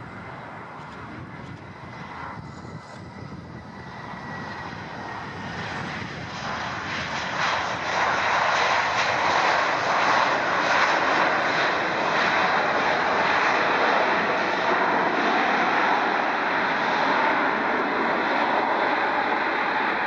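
Airbus A320 jet engines during the landing roll, the roar building from moderate to loud and steady between about six and eight seconds in.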